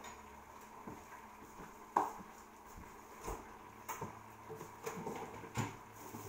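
Scattered light knocks and clatters of kitchen things being handled. The loudest comes about two seconds in, with a few smaller ones after it, over a faint steady background.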